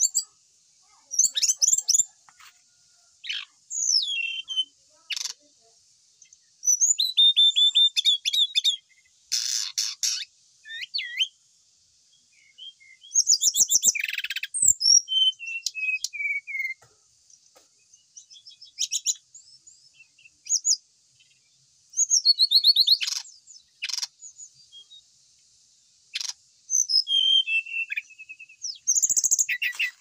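A caged Cyornis flycatcher singing: a string of short, varied phrases of high whistles, quick trills and chatter, broken by brief pauses.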